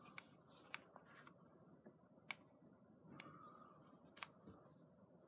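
Faint handling noise: cotton-gloved fingers shifting and rubbing on the plastic body of a Canon Speedlite 300EZ flash, with a handful of small sharp clicks from the plastic. The loudest click comes a little over two seconds in.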